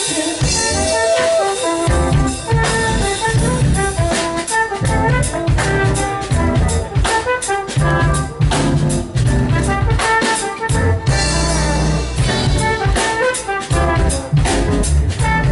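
Live jazz band playing, with a trombone carrying the melody over a drum kit and keyboard.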